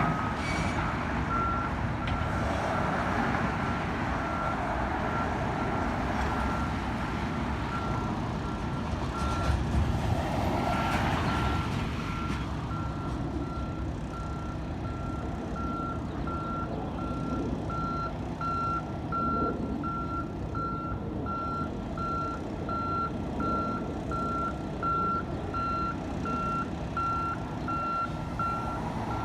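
Backup alarm on heavy construction machinery beeping steadily, about three beeps every two seconds, over the running of diesel engines. A louder surge of machine noise comes about ten seconds in.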